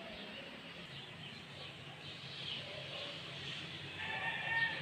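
Faint scattered chirping, then about four seconds in a drawn-out animal call at one steady pitch begins and carries on past the end.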